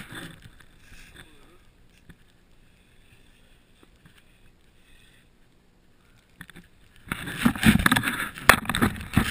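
Sliding over packed snow: a rough, rushing scrape with knocks. It fades out within the first second, leaving only faint noise, then starts up loud again about seven seconds in as the camera moves.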